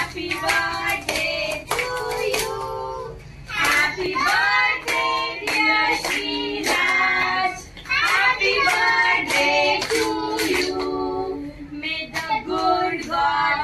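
A high-pitched voice, like a child's, singing a song, with hand claps.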